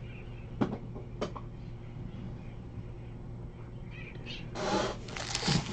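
Two short sharp clicks a little under a second in and about half a second later, then, from near the end, foil trading-card pack wrappers crinkling and rustling as the packs are handled.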